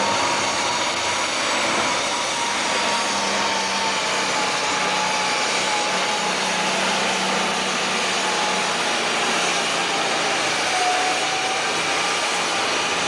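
International 1066 super stock pulling tractor's turbocharged diesel engine running flat out as it drags the weight-transfer sled, a steady full-power note held through the pull.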